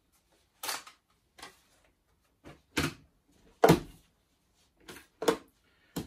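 Plastic parts of a Miele Triflex HX1 cordless stick vacuum clicking and knocking as it is taken apart and reassembled. About eight short, separate clicks and clunks come at irregular intervals, the loudest a little past the middle.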